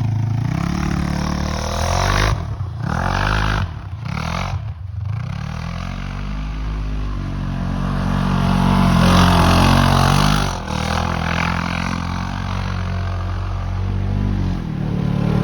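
Polaris RZR side-by-side engine revving up and down repeatedly while it drifts and spins in snow, dipping briefly a few times, with a louder stretch of engine and scraping noise partway through.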